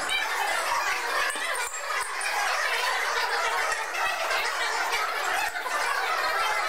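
Rusty iron railroad spikes being handled and set onto a pile, with a few light clinks and scrapes of iron on iron, over a steady background murmur of onlookers.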